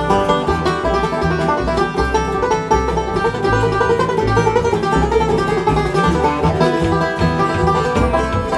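Acoustic bluegrass band playing an up-tempo tune: banjo picking over acoustic guitar, mandolin and upright bass, with the plucked bass keeping a steady pulse underneath.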